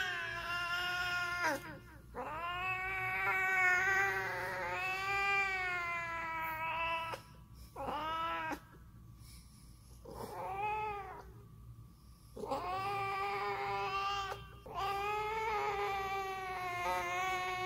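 Domestic cat yowling close to a handheld karaoke microphone: a series of about six long, drawn-out calls, with two short ones in the middle.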